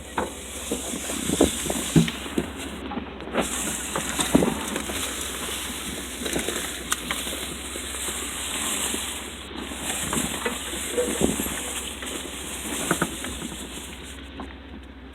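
Off-road vehicle crawling slowly over a rocky trail: a low engine drone under scattered knocks, clunks and rattles from the body and suspension as it works over the rocks.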